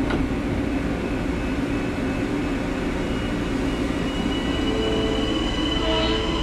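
Long Island Rail Road Kawasaki M9 electric multiple-unit train pulling out of a station, with a steady rumble and hiss. About four and a half seconds in, a whine of several steady tones from the traction motors sets in as it picks up speed.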